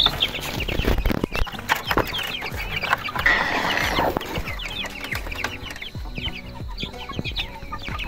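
Young chickens cheeping and clucking in quick, overlapping short calls, crowding around food. A few sharp knocks about a second in and a brief rustling scuffle about three seconds in.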